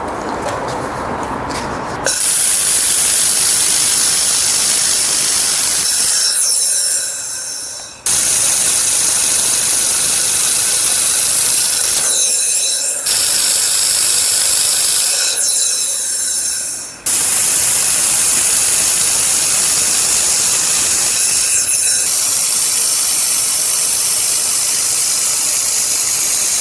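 Handheld laser welder firing in long runs, a loud steady hiss that starts about two seconds in, then tails off and cuts back in three times.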